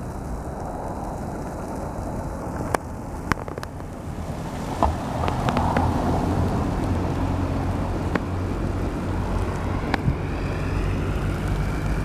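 Blizzard wind buffeting the microphone over the steady hiss of traffic on a snowy road, with a few sharp clicks. The low wind rumble grows stronger about five seconds in.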